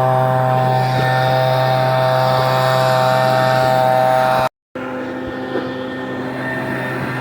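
Kubota mini excavator's diesel engine running steadily under throttle. About four and a half seconds in, the sound cuts out for an instant and comes back a little quieter with a changed pitch.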